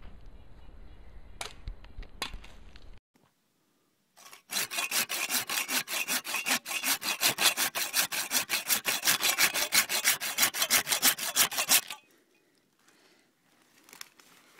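Hand pruning saw cutting through a tree limb with fast, even back-and-forth strokes, about five a second, starting a few seconds in and stopping about three seconds before the end.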